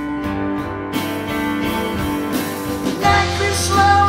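Live band music: a guitar-led instrumental passage of a slow song, with the bass and brighter guitar notes coming in stronger about three seconds in.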